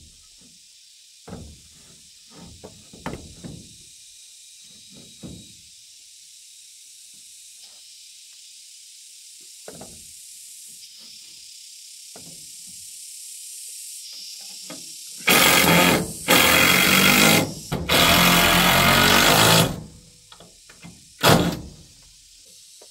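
Cordless drill driving screws into wooden wall boards: three loud runs of a few seconds each, starting about two-thirds of the way in, and a short burst near the end. Before them there are light knocks as the boards are handled and pressed into place.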